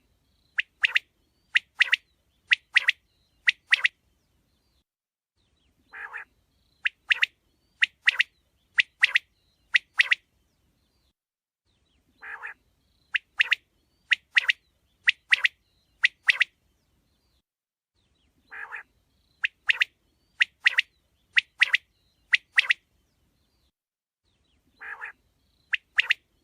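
Quail calling in repeated phrases: a soft, low rasping note, then four or five sharp, high notes about a second apart. The phrase comes back about every six seconds, four times here, with silence between.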